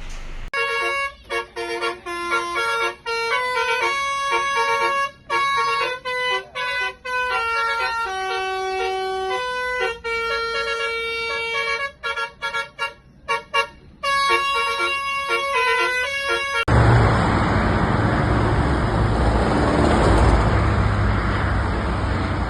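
Telolet multi-tone bus horn playing a tune of short stepped notes broken by brief gaps. Near the end it cuts off abruptly and a loud, steady vehicle rumble with a low hum takes over.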